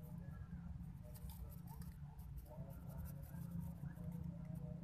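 Faint rustling and small scratching clicks of a hand working a baited fishing line at an eel hole in wet mud among rice plants, over a steady low rumble.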